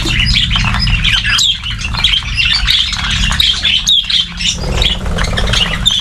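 A flock of budgerigars chattering without pause, a dense mix of short high chirps and squawks, over a steady low hum.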